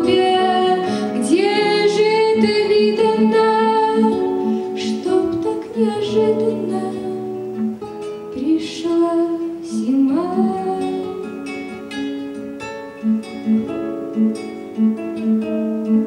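Two guitars playing a song's accompaniment: a melody picked over strummed chords, with even plucked beats in the last few seconds.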